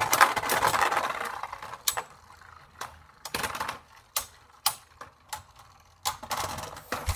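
Beyblade Burst tops, Cho-Z Achilles against Dead Phoenix, spinning and clashing in a plastic stadium. A dense rattling whir at first fades within a couple of seconds. Then comes a run of sharp plastic clacks as the tops hit each other and the stadium walls.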